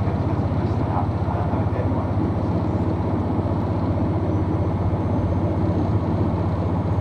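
Diesel engine of a limited express diesel railcar running steadily under load, a constant low drone heard from inside the passenger car as the train travels.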